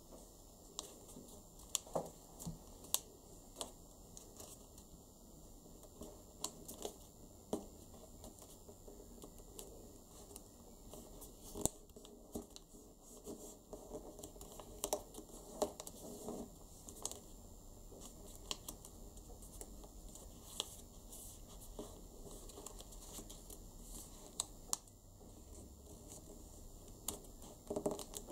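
Origami paper being folded and creased by hand on a wooden tabletop: irregular small crinkles, crackles and taps as the fingers press and smooth the folds.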